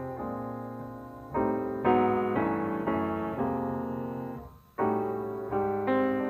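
Background piano music: chords struck one after another, each fading as it rings, with a short break about four and a half seconds in.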